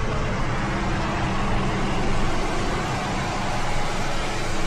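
Steady engine hum and road rush of a moving vehicle, heard from inside the cabin.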